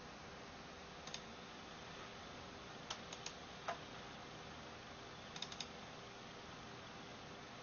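Soft computer keyboard key clicks in small clusters: two about a second in, three at around three seconds followed by a single louder click, and three or four more past five seconds. Under them is a faint steady hum.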